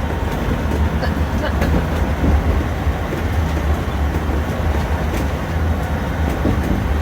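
Steady low road and engine rumble inside a moving vehicle's cabin at highway speed.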